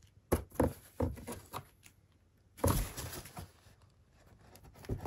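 Cardboard box rustling and scraping, with a few short knocks, as the cat shifts about inside it; the loudest knock comes about halfway through.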